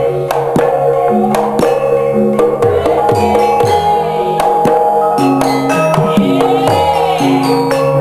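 Javanese gamelan music: metallophones ringing a melody over hand-drum strokes that fall in pitch.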